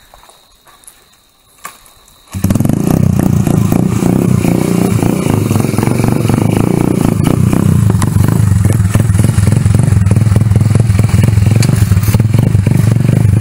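Small motorcycle engine running close to the microphone, loud and steady with some rattle; it comes in suddenly about two seconds in.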